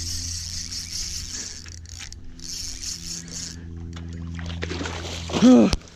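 Spinning reel's drag buzzing as a hooked northern snakehead pulls line against a drag set too loose, breaking off briefly and stopping about three and a half seconds in, over a steady low hum. A loud excited shout near the end.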